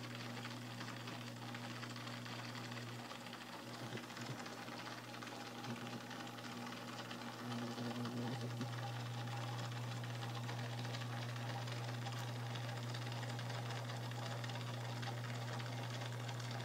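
Steady low electrical hum of running aquarium equipment, heard through the tank. It weakens a few seconds in and comes back steady about halfway through.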